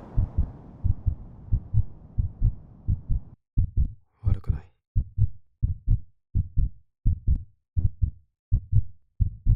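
Heartbeat thumping in lub-dub pairs, a little under one and a half beats a second. A background hiss under it cuts off suddenly about three and a half seconds in, leaving the beats alone, with a brief breathy sound a second later.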